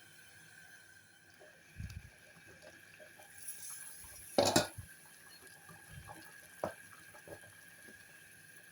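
Kitchen handling sounds: scattered light knocks and clinks of a cooking pot and utensils, with one louder clatter about four and a half seconds in, over a faint steady high tone.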